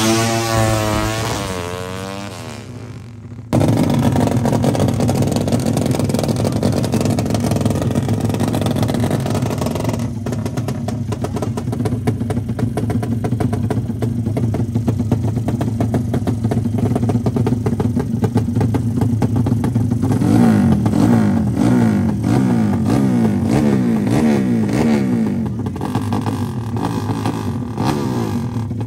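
A drag-race motorcycle accelerating away, its engine note falling and fading into the distance. After a cut about three seconds in, a Suzuki Satria FU drag bike's single-cylinder four-stroke engine runs steadily at the start line, its revs blipped up and down repeatedly from about twenty seconds in.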